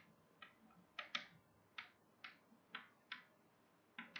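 Chalk writing on a blackboard: a faint string of short, irregular taps and scrapes, about a dozen in all.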